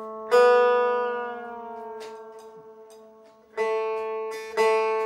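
Dean metal-bodied resonator guitar: strings plucked and left to ring while the second string is tuned from B down to A against the open A string. One pluck comes just after the start and fades slowly, then two more plucks follow near the end.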